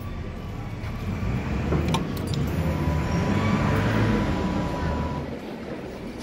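A road vehicle passing in the street, its sound swelling and fading over a few seconds, with a few sharp clicks about two seconds in.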